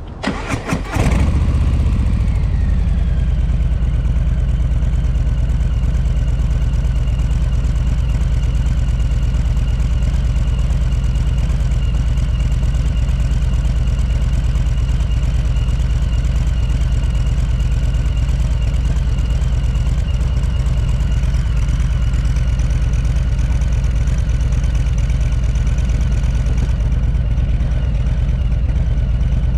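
Harley-Davidson Low Rider S Milwaukee-Eight 114 V-twin on its stock exhaust, cranked and started about a second in, then idling steadily. The stock exhaust is pretty quiet on idle.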